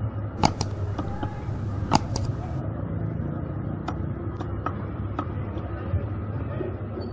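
A large aair catfish is sliced by hand against a fixed boti blade, with sharp clicks and knocks, loudest twice in the first two seconds. Under it runs a steady low rumble of market din.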